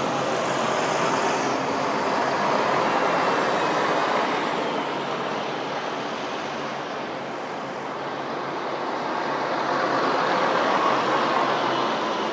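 Diesel engine of an old Volvo B10M single-deck bus running as it drives past, with the steady sound of other bus engines around it. It swells louder about three seconds in and again toward the end as the bus comes close.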